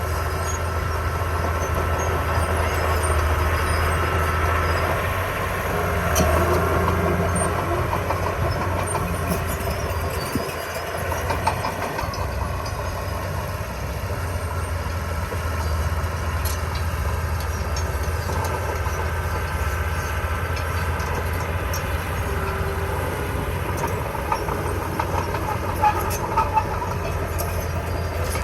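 Heavy-equipment diesel engine running steadily under work, with a few sharp metallic clanks near the end.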